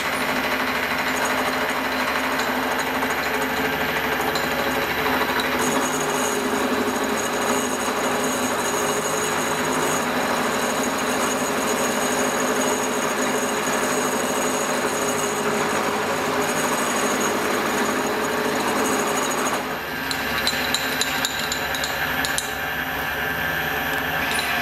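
Vertical milling machine running, its end mill cutting into an aluminium workpiece as the table is fed by hand: a steady machining noise. About twenty seconds in the sound dips briefly and a few sharp clicks follow.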